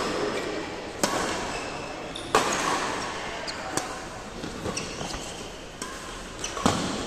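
Badminton racquets hitting a shuttlecock in a doubles rally: three sharp hits, about a second in, about two and a half seconds in, and near the end, with a short ring after each.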